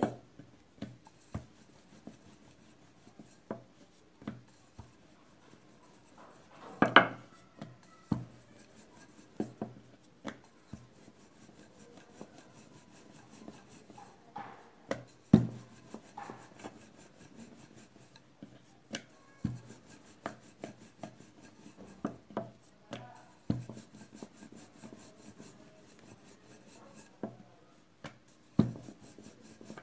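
Rolling pin rolling dough out into a thin round on a round wooden board, with soft rubbing and scattered light knocks. Two louder knocks come about 7 and 15 seconds in.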